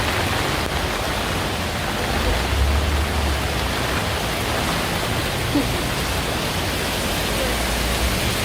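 Heavy rain pouring down steadily, a dense even hiss of downpour. A low rumble swells briefly about two to three seconds in.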